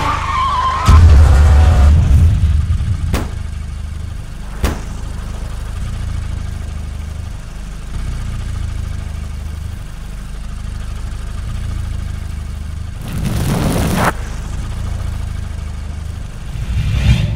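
A car engine running with a steady low rumble, as a dashcam in the cabin picks it up. It is loudest for a couple of seconds about a second in, with two sharp clicks a little later and a short, loud rush of noise about thirteen seconds in.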